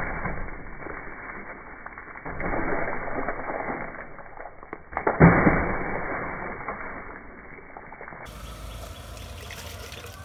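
Water thrown from a mug splashing against a car's bodywork, twice, about two and five seconds in, each splash trailing off as the water runs and drips off the car.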